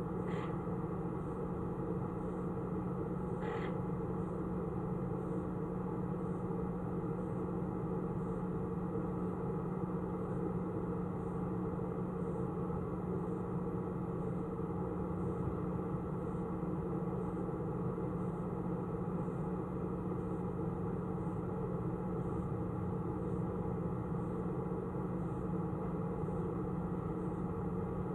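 Steady machine hum made of several fixed tones over a low rumble, with two brief high chirps in the first few seconds.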